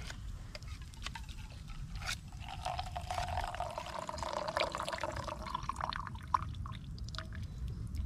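Liquid poured from a metal kettle into a stainless steel mug, a splashing stream that starts about two seconds in and tails off after about six seconds, with one sharp click near the end of the pour.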